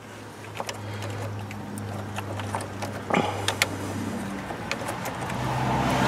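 Scattered light clicks and taps of metal being handled at a car battery terminal as it is loosened, over a low steady hum; a broad rushing noise swells near the end.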